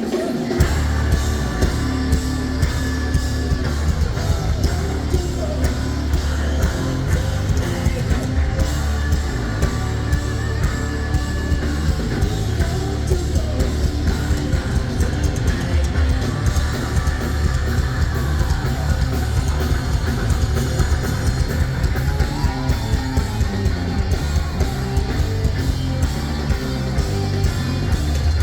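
Live hard rock band playing loudly: distorted electric guitar, heavy bass and a pounding drum kit, with a steady beat of drum hits.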